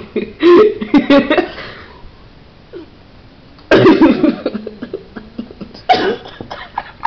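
A person's wordless vocal noises in short bursts: a cluster in the first second and a half, a louder burst a little under four seconds in, and a brief one about six seconds in, with a quieter stretch between.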